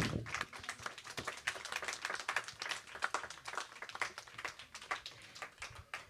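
Audience applauding with scattered hand claps, which thin out and die away near the end.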